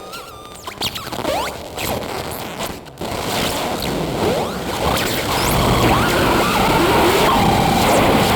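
Experimental electroacoustic noise music. For about three seconds it is sparse: clicks and short sliding squeals. Then it swells into a dense, louder wash of noise crowded with gliding squeaks.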